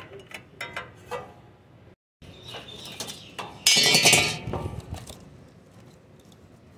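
A socket driver clicking in short quick clicks as it turns the screws on a small generator's alternator end cover. After a break, a loud rattling clatter of about a second comes from the metal cover and the wiring being handled inside.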